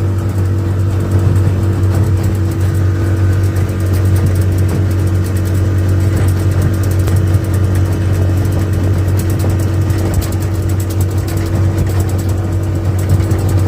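Jon boat's outboard motor running at a steady speed, a loud even hum.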